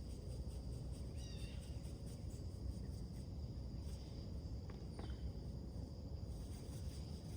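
A songbird gives a short call about a second in and another brief call near five seconds in. Under the calls runs a steady low background rumble of outdoor noise.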